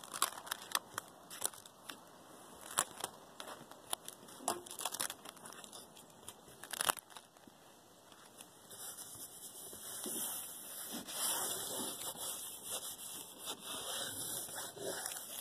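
Crinkling and crackling of self-adhering bitumen flashing tape and its film being handled and pressed down by hand, with many sharp crackles in the first half. From about nine seconds in, a steadier high hiss runs under scattered crackles.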